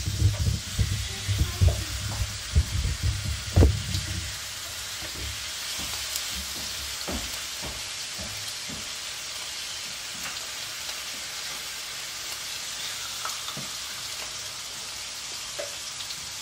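Lamb chops sizzling steadily in a hot frying pan, with a run of knocks and bumps from the pan being handled over the first four seconds.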